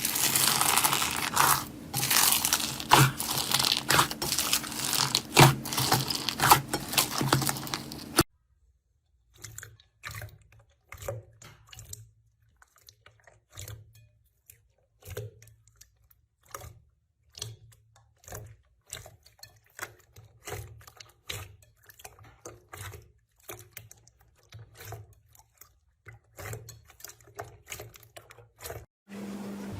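Slime being worked by hand, crunching and crackling densely over a low hum. After an abrupt cut about eight seconds in, it gives sparse crisp clicks and pops.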